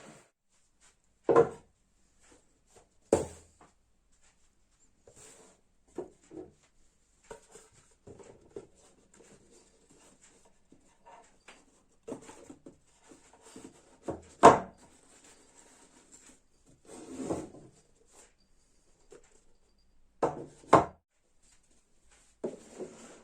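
Wooden objects being handled and set down on a hard surface: irregular knocks and clunks of wood, with a short stretch of rubbing or sliding. The loudest knock comes about halfway through.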